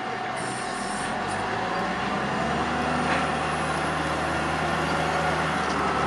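Volvo wheel loader's diesel engine running steadily while it carries a load of logs in its grapple, growing a little louder after about two seconds.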